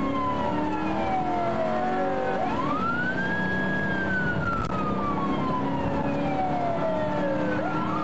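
Police car siren on a slow wail. The pitch climbs quickly, holds briefly, then slides slowly down over about five seconds, and climbs again near the end. The steady road noise of the moving patrol car runs beneath it.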